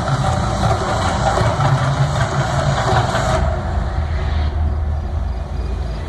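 The Mirage volcano show: a loud, steady low rumble with a rushing hiss over it. The hiss drops away about three and a half seconds in, leaving the rumble.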